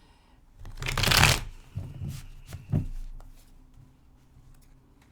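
Tarot cards being shuffled: one quick rush of cards about a second in, followed by a few lighter flicks and taps of the deck.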